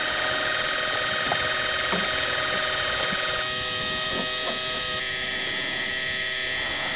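Steady mechanical whine over a hiss, made of several steady high tones held at once. The mix of tones shifts about three and a half seconds in and again about five seconds in.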